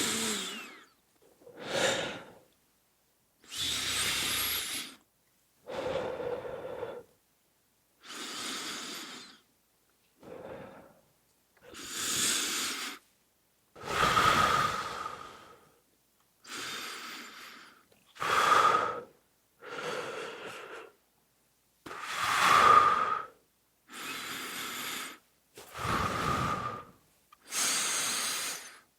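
A person's deep, heavy breaths, close-miked: a series of about fifteen separate breaths, each lasting around a second, with short silences between them.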